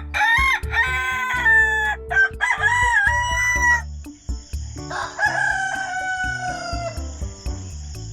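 Rooster crowing twice, the second crow sliding down in pitch, over steady background music.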